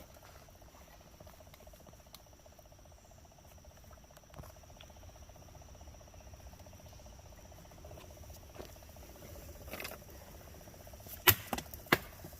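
Rapid, steady tapping from under a rock, which the uploader takes for water flowing through a shaft beneath it. A faint, steady high tone runs alongside, and a few sharp knocks come near the end.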